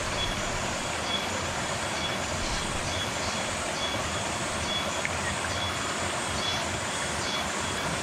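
Steady rushing of a mountain stream, with a short high-pitched note repeating about every two-thirds of a second over it.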